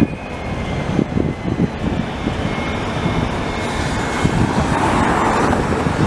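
Low-floor electric tram passing close on street track, a steady rumble of its wheels and running gear on the rails mixed with road traffic, growing a little louder and hissier from about four seconds in.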